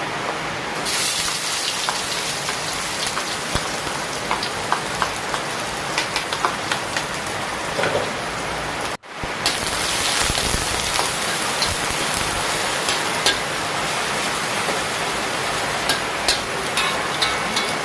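Ginger, garlic and turmeric frying in hot oil: a steady sizzle with scattered crackles and pops. It grows louder about a second in and cuts out for an instant about halfway.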